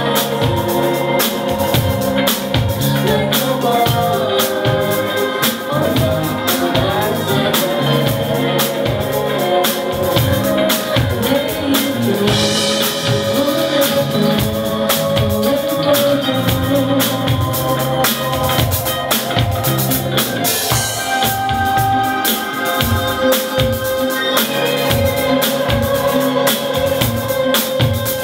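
Live band music: sustained organ-like keyboard chords and melody over a drum kit beat, with cymbal washes about halfway through and again later.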